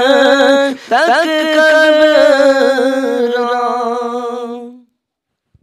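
A man singing solo and unaccompanied, drawing out long wavering vowel notes of a Punjabi Sufi kalam. The voice breaks off briefly under a second in, slides upward into the next held note, and fades out about five seconds in.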